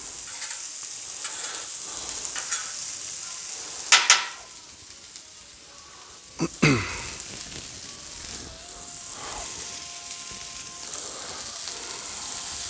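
Food sizzling and frying on a Blackstone steel flat-top griddle, a steady hiss, with sharp metal clatters of a spatula on the griddle twice, about four seconds in and again a couple of seconds later.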